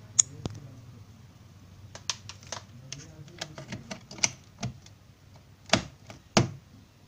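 Irregular sharp plastic clicks and knocks as a three-pin mains plug is handled and pushed into a power-strip socket, the two loudest about a second apart near the end.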